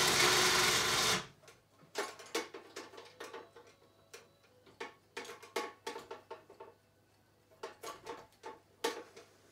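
12-volt four-wheeler winch motor running and cutting off abruptly about a second in. Then a series of light clicks and knocks as a metal hook and hanging scale are handled and clipped onto the lifting cord.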